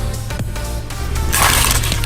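Background music with a steady bass line; a short noisy crunch-like burst rises over it about a second and a half in.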